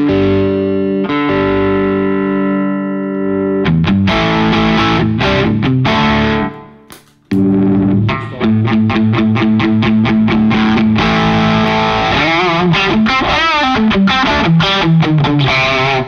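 Electric guitar played through an Officina Elettrica StompAmp Brown amp-in-a-box pedal, with a distorted tone. It opens with held chords ringing out, then strummed chords, then a brief stop about seven seconds in. After that come fast rhythmic strumming and, near the end, notes wavering in pitch.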